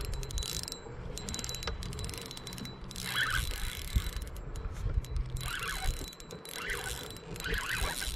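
Spinning fishing reel being cranked to bring in a hooked fish, a rapid mechanical clicking and whirring from its gears.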